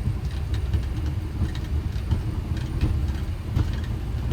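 Boeing 737 flight deck noise while taxiing: a steady low rumble from the idling engines and the rolling airframe, with a few faint clicks and rattles.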